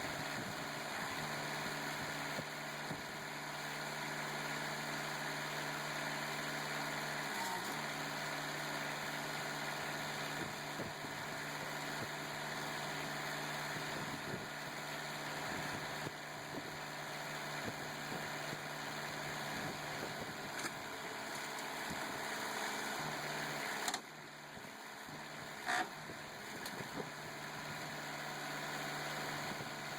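Hydraulic power unit of a rim crusher running with a steady hum; its pitch sags briefly about seven seconds in. Near the end the sound drops for a couple of seconds, with a short sharp clank during the lull.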